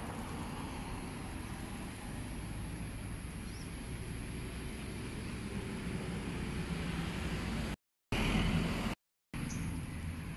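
Steady outdoor background noise, mostly a low rumble with some hiss. Near the end it cuts out to total silence twice, briefly, with a short louder burst of noise between the two cuts.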